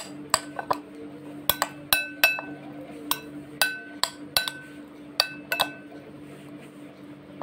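Metal spoon clinking against a glass bowl while stirring boiled corn kernels: about a dozen sharp, ringing clinks at irregular intervals.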